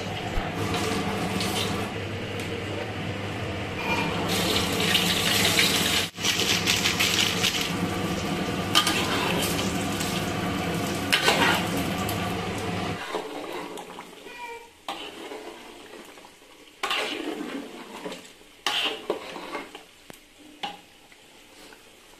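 Kitchen cooking sounds: metal utensils clinking and scraping against steel pots and bowls, with food frying in the pot, over a steady low hum. The hum stops about 13 seconds in, leaving scattered clinks and clatters.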